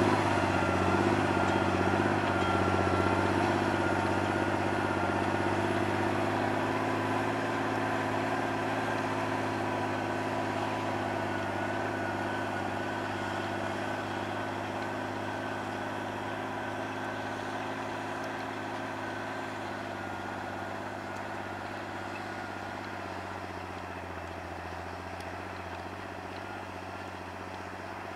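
John Deere 8200 tractor's six-cylinder diesel engine running steadily under load while pulling a plough through the soil, with a thin steady whine above the engine note. It grows steadily fainter as the tractor moves away.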